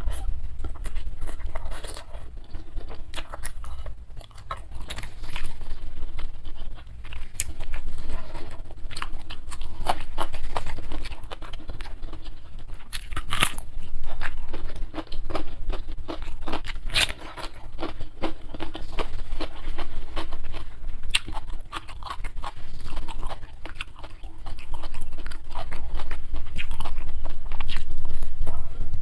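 Close-miked eating: steady chewing with many irregular crunchy crackles and clicks from the mouth.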